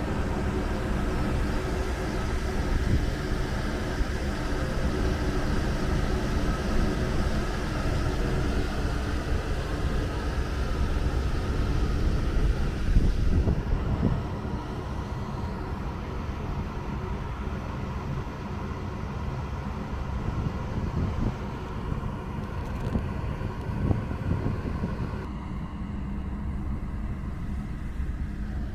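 Steady low rumble and hum of the overnight car ferry Orange Ehime's engines and deck machinery, heard on the open deck, with a low gusty rumble of wind on the microphone. The higher hiss drops away about halfway through.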